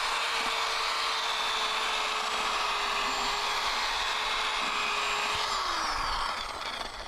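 Power drill with a mixing paddle churning mortar in a bucket, the motor whining at a steady pitch, then winding down about five and a half seconds in.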